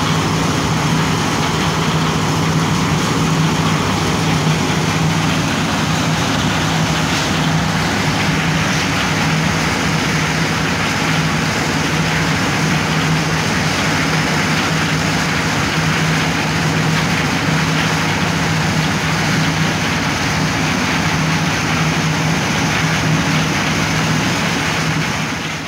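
Concrete mixer with a built-in lift hoist running steadily, its drive giving a constant droning hum.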